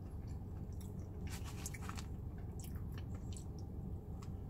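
A person chewing and biting into fried chicken close to the microphone, with scattered small wet mouth clicks and smacks over a low steady hum.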